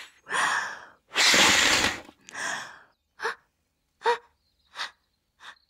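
A young girl's breath, voiced for a cartoon: three long, hard puffs blowing up an inflatable swim toy, then four short catching gasps, getting shorter, that build up to a sneeze.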